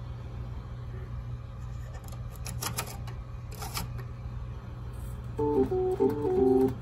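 Electric home organ switched on, giving a steady low buzz whose cause its owner doesn't know. A few sharp clicks come in the middle, then from about five seconds in a handful of short organ chords are played.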